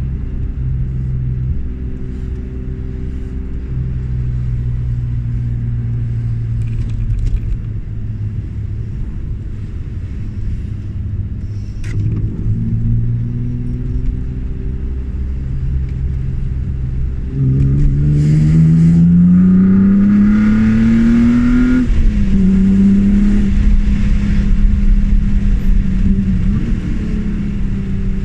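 BMW E36 M3's straight-six engine pulling steadily at moderate revs, then about two-thirds in it opens up: revs climb for several seconds, drop sharply at an upshift, and climb again in the next gear.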